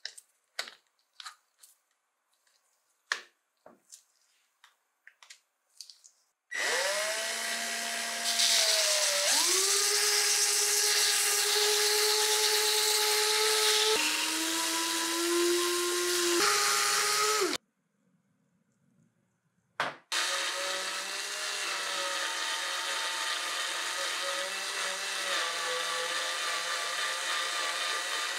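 Cordless drill spinning a wooden tool handle held in its chuck while it is sanded and then rubbed with a cloth, the motor giving a steady whine whose pitch shifts a few times under the load. Light clicks come in the first few seconds. The drill stops about 17 seconds in and starts again about two seconds later.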